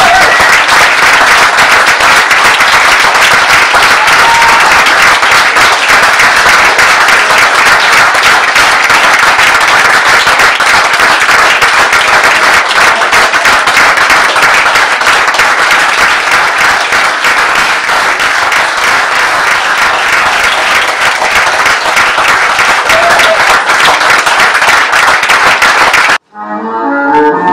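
Audience applauding steadily and loudly at the end of a tango dance. About 26 seconds in it cuts off suddenly and a different piece of music starts.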